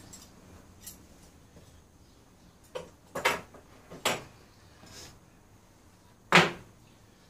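Small bonsai hand tools being picked up and set down: about five short clicks and knocks at uneven intervals, the loudest about six seconds in.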